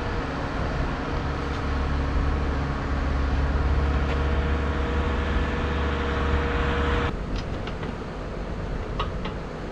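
An engine running steadily with a low drone and a held hum, cutting off abruptly about seven seconds in.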